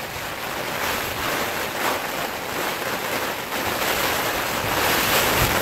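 Heavy rain on a tent's flysheet, heard from inside the tent: a dense, steady hiss that grows slightly louder near the end.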